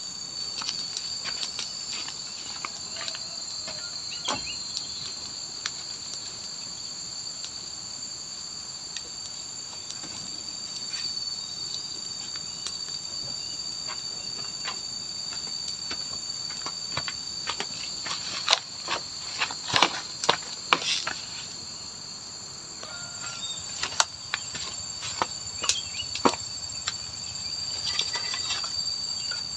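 Steady high-pitched insect chorus holding two constant tones, with scattered knocks and clatters, a cluster of louder ones about two-thirds of the way through and more near the end.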